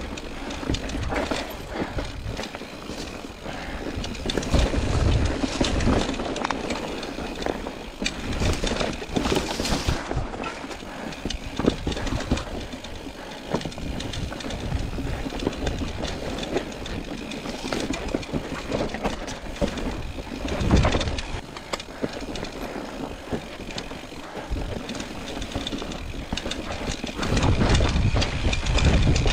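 Mountain bike rattling over a rough, rocky trail: tyres on stones and the chain and frame clattering continuously, with louder jolts every several seconds.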